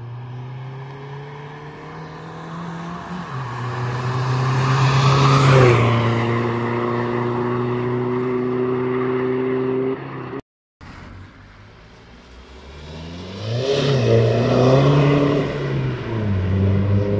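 Straight-piped 2.0 TDI diesel of a Seat Leon FR with a downpipe, driving past under power: the engine note builds to its loudest about five seconds in, then holds steady. After a brief cut, the car passes again, its pitch rising and falling, loudest a few seconds before the end.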